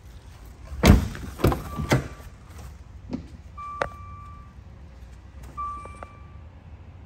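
A car door shut with a heavy thud about a second in, followed by two lighter knocks. Then a short electronic beep repeats about every two seconds: the car's warning chime for a door left open.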